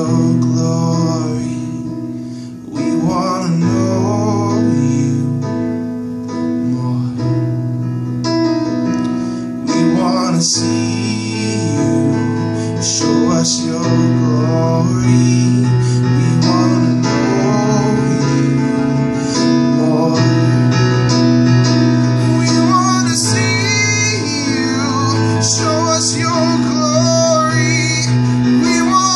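A man singing while playing chords on an Alesis electronic keyboard.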